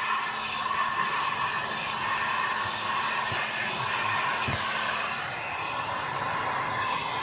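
Electric heat gun running steadily, its fan blowing with an even whir as it heat-shrinks window tint film onto a curved tractor window.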